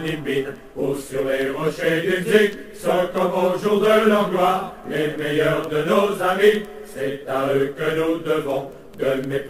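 Music track of low male chanting: long held sung notes in phrase after phrase of a second or two, with short breaks between them.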